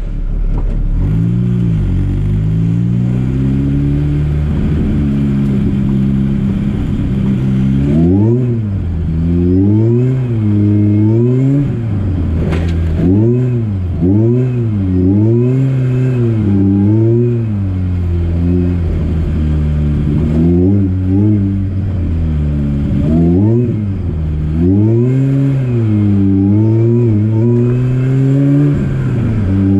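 Opel Speedster's supercharged Saab B207 four-cylinder engine running loud. It holds a fairly steady pitch for several seconds, then is revved up and down over and over, the pitch climbing and dropping roughly once a second.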